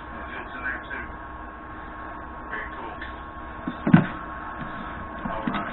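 Metal hand tools handled while being unpacked from a toolbox, with one sharp clank about four seconds in, over a steady electrical hum.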